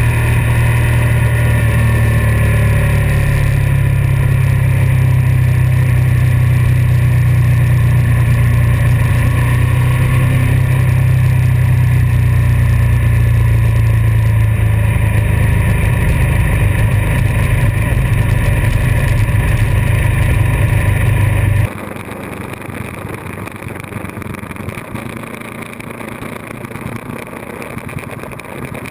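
Ducati 1098S's L-twin engine running at a steady cruising pace under the rider, heard from a bike-mounted camera. About two-thirds of the way through the sound cuts abruptly to a quieter rush of wind and road noise with the engine fainter.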